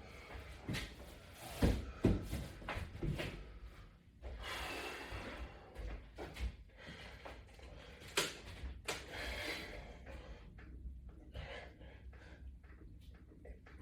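A person breathing hard through exercise, with hissy exhales, mixed with scattered knocks and clicks of workout equipment; the loudest knocks come about two seconds in.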